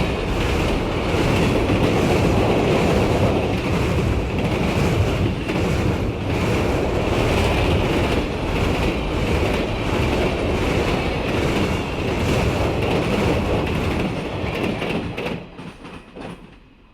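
Diesel train rolling past: wheels clacking over rail joints under a steady high squeal, until the sound drops away about fifteen seconds in and fades out near the end.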